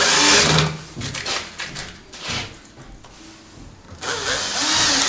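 Cordless drill-driver driving wood screws through the flange of a plastic kitchen-cabinet leg into the cabinet's base panel. A burst of driving stops within the first second, scattered knocks follow, and a second burst starts about four seconds in.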